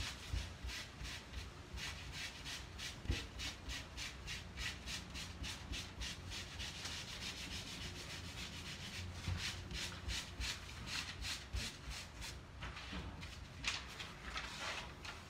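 Hands rubbing fabric pressed onto a painted plate in quick back-and-forth strokes, about four a second, a dry brushing hiss. This is hand-burnishing to transfer a monotype print onto cushion fabric. The strokes slow to a few separate rubs near the end.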